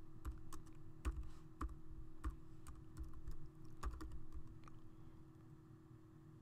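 Computer keyboard keys clicking irregularly as a command is typed, a few keystrokes a second, thinning out about two-thirds of the way in. A faint steady hum runs underneath.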